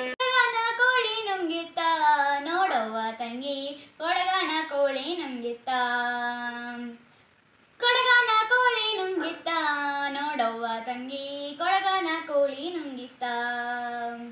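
A young girl singing solo without accompaniment, in two long phrases that each end on a held low note, with a short pause between them about seven seconds in.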